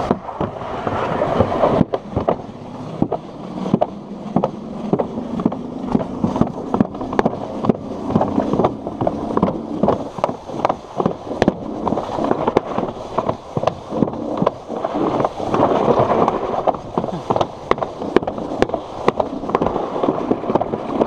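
Alpine slide sled running fast down a concrete track: a steady rumble broken by many sharp clicks and knocks.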